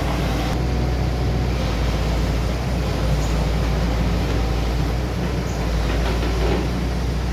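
Diesel engine of a Hitachi 110 hydraulic excavator running steadily at a constant speed.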